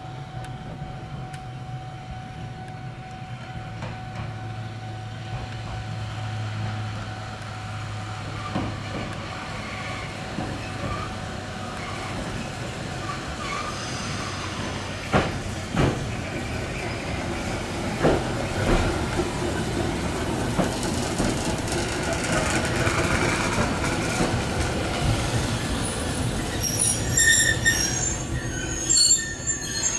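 Keifuku Electric Railroad (Randen) tram pulling in, its running noise growing louder as it nears. A few sharp clacks of the wheels over rail joints come midway, and high-pitched wheel squeal comes near the end as it draws alongside the platform.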